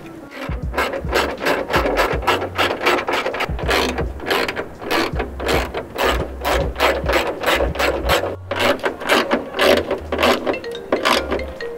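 Hand ratchet clicking in quick strokes, about four clicks a second with a short pause about eight seconds in, as the hood hinge bolts are screwed in and tightened.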